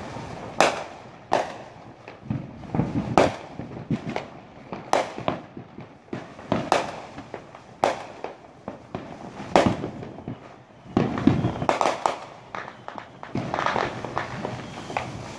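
Fireworks show heard from a distance: sharp bangs at irregular intervals, roughly one a second, turning into dense crackling near the end.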